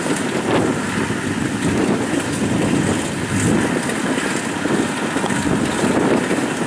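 Kubota DC70 Plus rice combine harvester running steadily as it cuts and threshes rice, its engine holding an even note.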